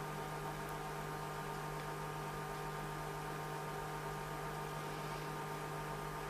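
Steady electrical hum with an even hiss, the background noise of the recording; no distinct sound from the crochet work stands out.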